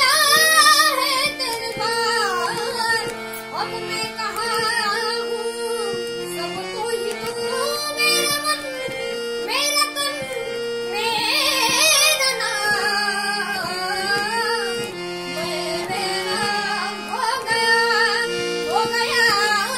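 Solo voice singing a melody with gliding ornaments, over instrumental accompaniment of steady held notes.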